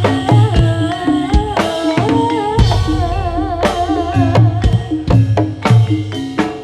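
Live band music driven by ketipung hand-drum strokes in a quick steady pattern, over a stepping bass line, with a melody wavering with vibrato above.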